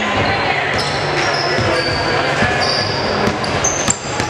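Basketball game play on a hardwood gym floor: sneakers squeaking in short high chirps and a basketball bouncing, over a steady murmur of voices in the gym.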